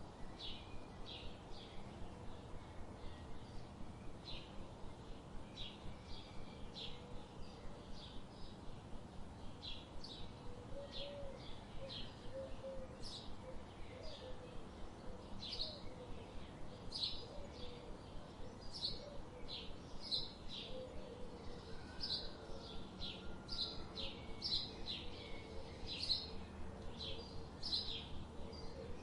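Birds chirping: a steady run of short, high chirps, several a second, with a fainter, lower warbling beneath from about ten seconds in.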